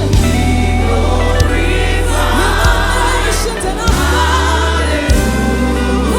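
Church choir singing a gospel worship song over a live band, with sustained bass notes and a beat about every second and a quarter.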